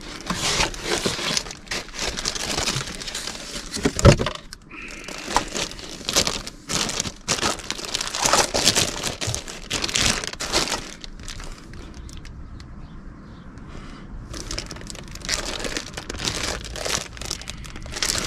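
Clear plastic packaging bags crinkling and rustling as a boxed car stereo head unit and its accessories are handled and unwrapped, in irregular crackles with a quieter lull about two-thirds of the way through. One dull thump about four seconds in.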